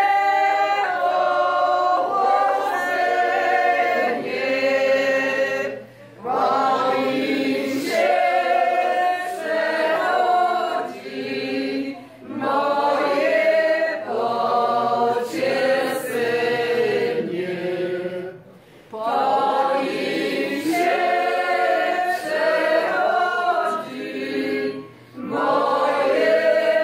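A group of men and women singing a song together without instruments. They sing in phrases of about six seconds, with a short pause for breath between them.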